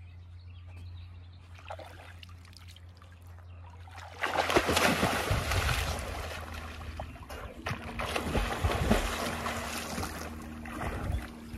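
A person plunging into river water with a loud splash about four seconds in, then swimming with splashing strokes.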